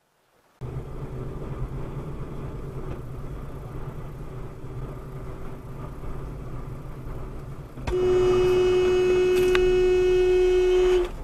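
Steady engine and tyre rumble of a car driving, heard from inside the cabin. About eight seconds in, a vehicle horn sounds one loud, steady blast of about three seconds, at an oncoming truck in the car's lane, and then cuts off.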